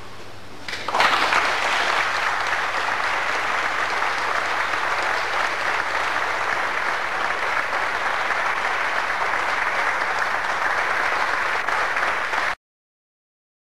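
An audience of students and spectators applauding, the clapping starting about a second in and running on steadily until it cuts off suddenly near the end.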